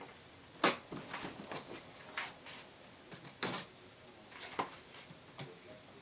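Cardboard product box being handled and shifted: a scatter of light knocks, scrapes and rustles, sharpest about two-thirds of a second in and again about three and a half seconds in.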